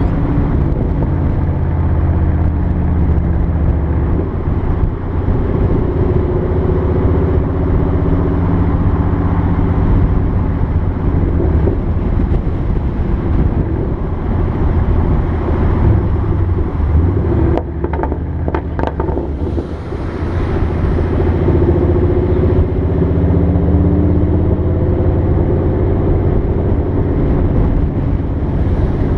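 2014 Mustang GT's 5.0 L V8 exhaust through Roush axle-back mufflers with the resonators deleted, on a Ford Racing Track Cal tune, with the revs rising and falling while driving. A little past halfway, as the revs drop off, there is a quick run of sharp cracks: deceleration pops and crackles from the tune and the open exhaust.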